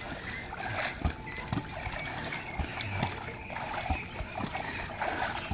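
Pool water splashing and sloshing as a Blue Heeler and a person wade and move about, with a few short sharp slaps scattered through.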